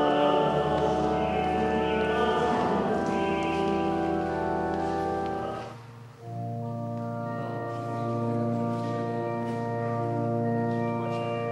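Church organ playing long sustained chords. The sound fades briefly about six seconds in, then a new chord is held.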